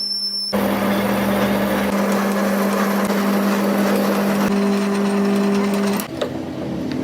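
Workshop machinery running during crankshaft repair: a steady hum with harsh grinding-like noise over it, starting abruptly near the start and cutting off about six seconds in.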